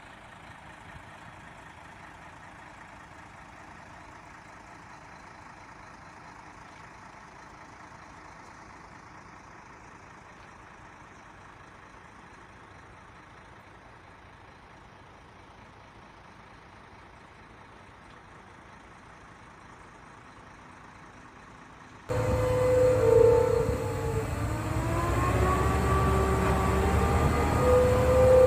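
Faint steady background noise for most of the stretch. About three-quarters of the way in, a heavily loaded Hino FM2P truck comes in suddenly and loud: a low diesel engine rumble with a long, wavering multi-note horn sounding over it.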